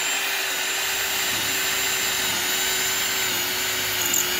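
Ryobi PSBHM01 18V brushless cordless hammer drill running steadily in regular drilling mode, no hammer action, its twist bit boring through a block of wood.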